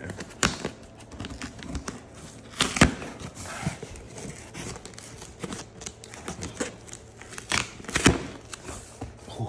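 Cardboard shipping box being pulled open by hand: flaps scraping and tearing, with scattered sharp knocks and taps, the loudest a little under three seconds in and again near eight seconds.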